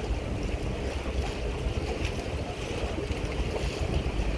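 Waterfront harbour ambience: wind buffeting the microphone over a steady low rumble and hiss.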